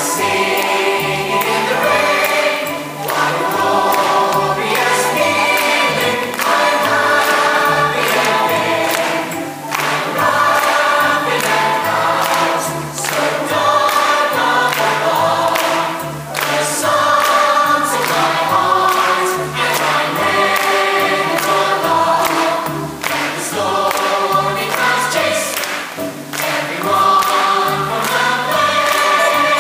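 Stage-musical ensemble singing in chorus with the pit orchestra, over a bass line stepping about twice a second.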